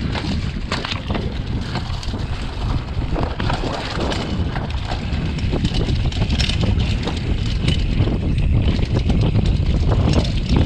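Wind buffeting the camera microphone as a downhill mountain bike descends a dirt trail, with the tyres rolling over dirt and dry leaves and the bike rattling in quick, irregular clicks and knocks. The rush gets slightly louder toward the end.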